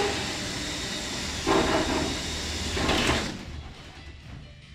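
Aluminium deck sheet scraping and sliding against the race car's chassis tubing as it is worked into place, with two louder scrapes about a second and a half and three seconds in, then quieter.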